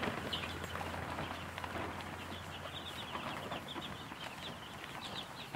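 A brood of baby chicks and ducklings peeping: many short, high chirps overlapping continuously.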